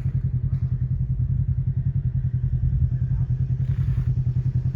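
Vehicle engine running steadily at a low, even speed, with a fast, regular pulsing exhaust note.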